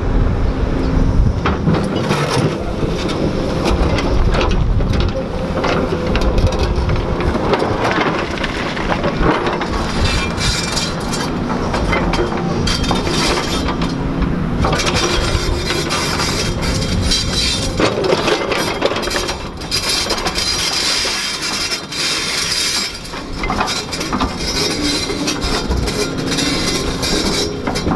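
JCB excavator's diesel engine running close by, with repeated metallic clanks and rattles over the steady engine noise.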